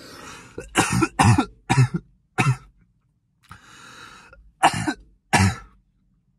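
A man coughing in a fit: a breath in, then several sharp coughs in quick succession, another breath, and two more coughs near the end.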